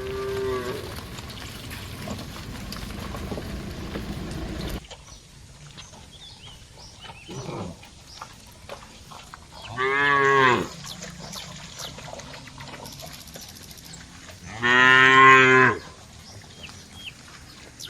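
Cattle mooing: a call fading out at the start, then two long moos, the loudest about fifteen seconds in. A steady rushing background noise cuts off suddenly about five seconds in.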